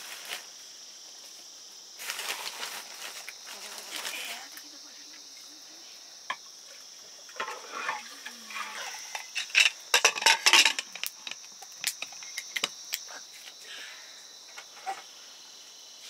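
Clinks and knocks of cooking utensils against metal pots, most frequent and loudest in the middle, over a steady high chirring of insects. There are a couple of short spells of rustling noise early on.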